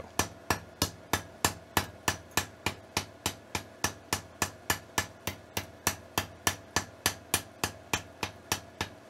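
Hand hammer striking hot steel on an anvil in a fast, even rhythm of about four blows a second, each a sharp metallic hit, with a faint steady tone underneath. The blows are forge-welding white-hot half-inch round stock.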